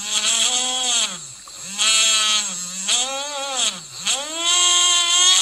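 Homemade brushed DC toy-motor armature spinning on its commutator, with a whining hum that starts abruptly and rises and falls in pitch about four times as the battery-wire contacts on the commutator are shifted, speeding it up and slowing it down. A steady hiss sits above the whine.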